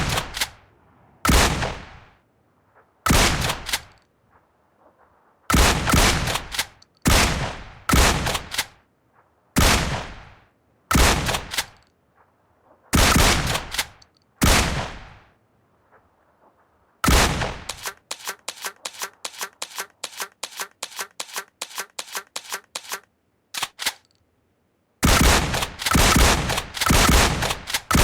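Shotgun blasts, each a sharp loud report with a short fading tail, fired singly or in quick pairs a second or two apart. From about 17 s a fast run of lighter shots at about three a second, and near the end a rapid string of loud blasts.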